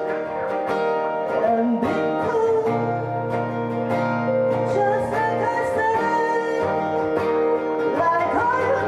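Acoustic guitar playing, with a voice singing held notes that slide in pitch.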